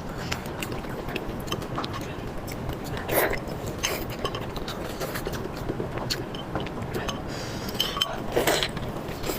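Close-up eating sounds: biting and chewing with small clicks and clinks of utensils, with two louder spells, one about three seconds in and one near the end.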